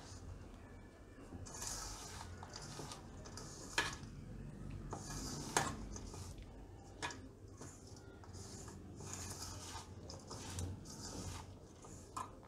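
Hands rubbing and crumbling a dry, crumbly mawa-and-sugar stuffing in a stainless steel bowl: soft rustling strokes every second or two, with a few sharp clicks against the bowl.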